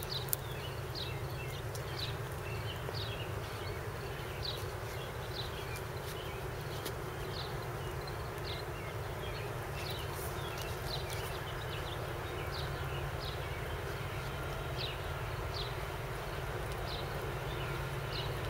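Trackside ambience: short high chirps repeating about once or twice a second over a steady low rumble.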